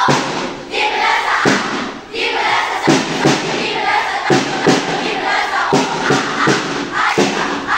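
A group of schoolchildren chanting a yell together, with many sharp hits in time with the chant, some in quick pairs.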